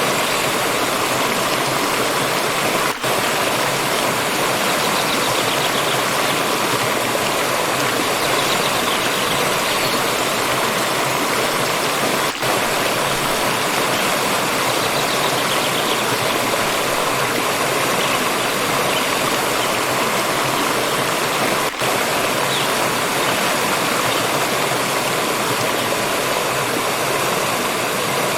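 Water of a stream rushing and splashing in a steady, full hiss, with three very brief dips in level spread through it.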